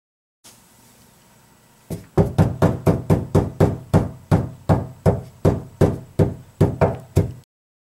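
Knuckles rapping on the bare, untreated rear cargo floor panel of a C5 Corvette, about three knocks a second for five seconds. Each knock rings briefly: this knock check tests how the panel sounds before any sound deadener is fitted.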